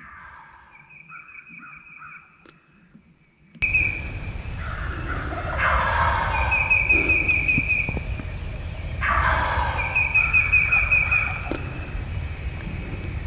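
Wild turkey gobbler gobbling: two loud gobbles about three and a half seconds apart, each followed by a high trill. Fainter calls come before them. A low wind rumble on the microphone begins about three and a half seconds in.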